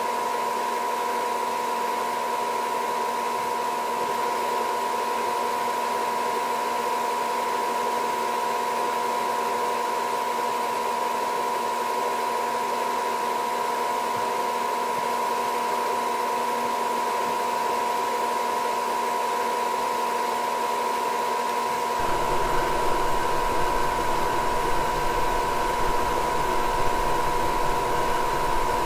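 Goodman gas furnace's draft inducer motor running at speed with a steady whine. About three-quarters of the way through, a low rumble comes in under the whine as the burners light.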